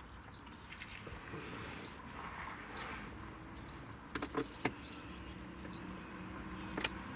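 Steady low hum of a car, with a few sharp clicks about four seconds in and another near the end.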